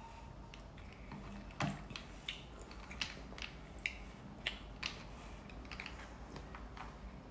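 Metal spoon clinking and scraping against a cut-glass bowl of fruit punch with ice while scooping up fruit: a string of about seven sharp light clinks, the first the loudest.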